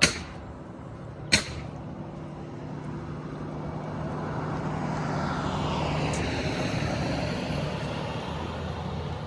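A motor vehicle passes along the street, its engine hum and tyre noise building to a peak about two-thirds of the way through and then easing off. Two sharp knocks come at the very start and again just over a second in.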